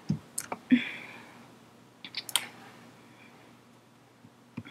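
Keys tapped on a computer keyboard: a quick run of clicks at the start, two more about two seconds in, then a pause before the tapping resumes near the end. A short soft hiss comes about a second in.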